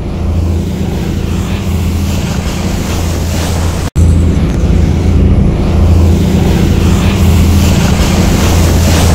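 Fishing boat's engine running steadily with a low hum, under the rush of water churning and foaming along the hull. The sound drops out for an instant about four seconds in and comes back a little louder.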